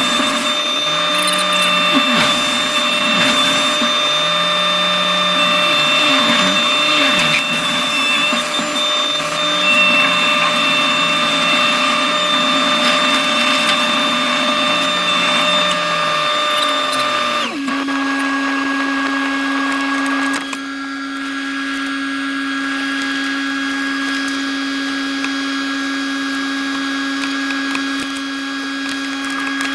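Skid steer with a forestry mulching head running hard: a steady machine whine with the engine note dipping and recovering under load. About 17 seconds in the sound changes abruptly and settles into a lower, steadier hum.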